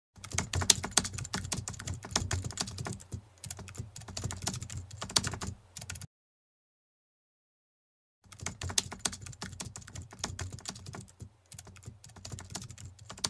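Computer keyboard typing sound effect: a rapid, uneven clatter of key clicks that stops for about two seconds in the middle, then starts again.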